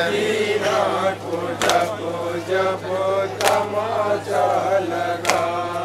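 Mourners doing matam, hands striking chests together in a slow, even beat: three strokes about two seconds apart, with men's voices chanting between them.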